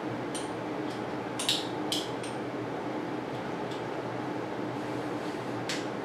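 A few light clicks and ticks from handling bicycle brake cable housing and its frame clips, the two loudest about a second and a half and two seconds in, over a steady room hum.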